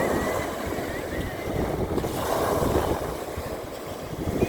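North Sea waves washing onto a beach, with a swell of surf about halfway through. Wind buffets the microphone, giving a low rumble underneath.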